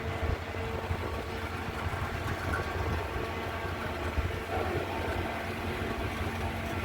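Diesel engine of a train pulling out of a siding, running with a steady low drone and a constant hum.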